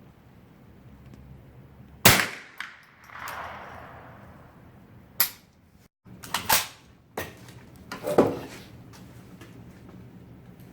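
Semi-automatic rifle shots, most likely from an SKS, fired singly at uneven intervals: about six sharp cracks, two of them in quick succession, each followed by a short ring.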